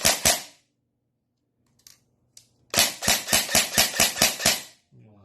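Bolt airsoft electric (AEG) rifle with a built-in recoil system firing full-auto bursts, each shot a sharp mechanical clack. One burst trails off just after the start. A second burst of about a dozen shots, roughly seven a second, follows about three seconds in.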